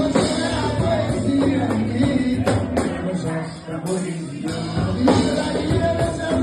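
Samba music from a samba group: percussion with plucked strings and singing. The bass drops out briefly a little past the middle.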